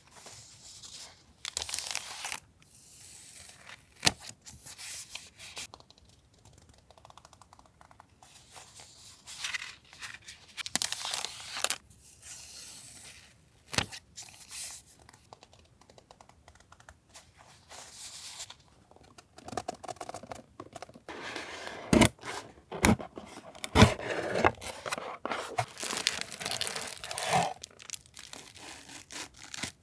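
Stationery packaging and paper goods being handled and unwrapped: paper and plastic rustling and crinkling in stretches, with a few sharp taps as items are set down.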